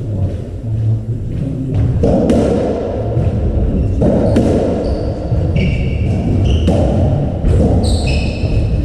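A Squash57 (racketball) rally in an enclosed court: the large hollow ball is struck and hits the walls with sharp, echoing thuds every second or two. In the second half, short high squeaks from shoes on the wooden court floor come in.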